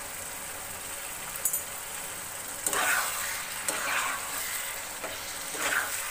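Chicken curry sizzling in its own separated oil in a nonstick pan. From about three seconds in, a metal spatula scrapes and stirs it in three strokes. The oil has separated from the masala, the sign that the curry is nearly done.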